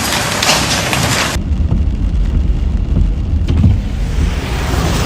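Heavy rain hissing steadily; about a second and a half in it cuts abruptly to a deep, muffled rushing noise.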